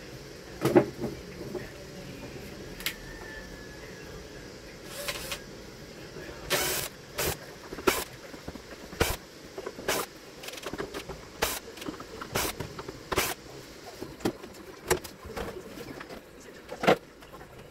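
Cordless screwdriver running in short bursts, backing screws out of a CRT television's plastic back cover, with sharp clicks and knocks from the cover and screws between the runs.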